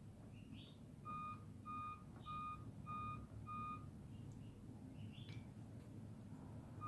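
Faint electronic beeping: five short beeps at one steady pitch, nearly two a second, starting about a second in and stopping before the fourth second, over a low steady room rumble.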